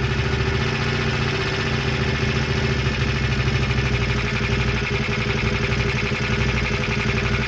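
Turbocharged CFMoto ZForce side-by-side engine idling steadily just after startup, a little loud, with a noise the owner questions as possible rod knock.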